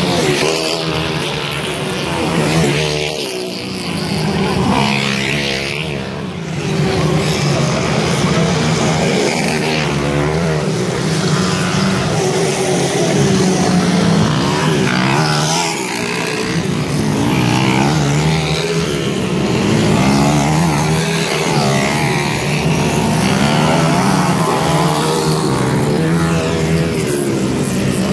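Dirt bike engines revving hard as motocross bikes race past, the pitch climbing and dropping again and again with throttle and gear changes.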